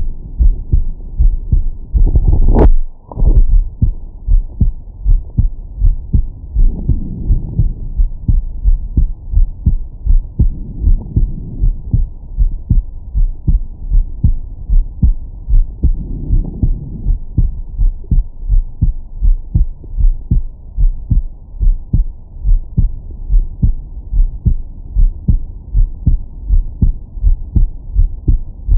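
A man's heartbeat picked up through a Stemoscope digital stethoscope on its 20–1000 Hz setting: steady, regular lub-dub beats with a deep bass thump. A brief burst of loud noise breaks in about two seconds in.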